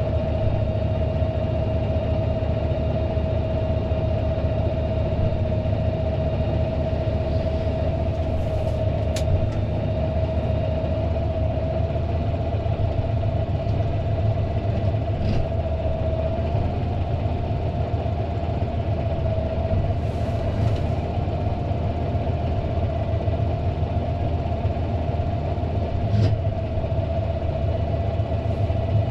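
Fendt 936 Vario tractor's six-cylinder diesel running steadily with a steady high whine over the engine, and a few brief light clicks along the way.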